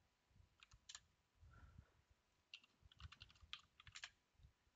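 Faint computer keyboard keystrokes: a few single key presses about a second in, then a quick run of keys in the second half, typing a password at a Linux terminal's sudo prompt.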